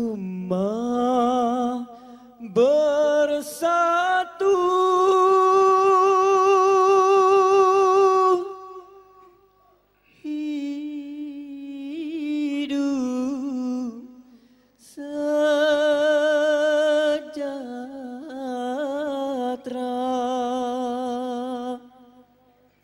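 Solo male voice singing a slow, melismatic dikir barat melody through a microphone, with long held notes and a wavering vibrato. The singing comes in several long phrases with brief pauses between them.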